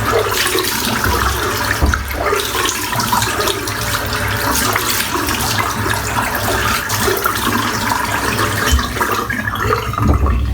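Water running from a tap and splashing into a sink, stopping near the end.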